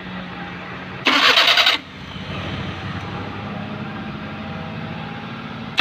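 Maruti 800 engine being restarted: a short, harsh starter grind about a second in, then the engine running steadily. The 'krrr' grind comes from the starter pinion not catching properly on a flywheel ring gear with damaged teeth.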